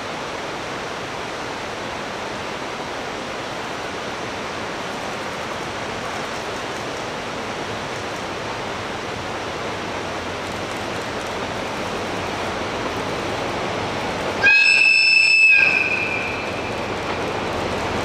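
A passing train runs with a steady rumble. About three-quarters of the way through it gives one horn blast of about a second, and after that the running noise grows louder.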